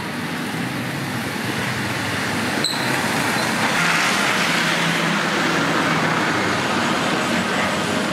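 Street traffic with a city bus driving past, its engine and tyre noise swelling to the loudest about halfway through, then easing off. A single sharp click about a third of the way in.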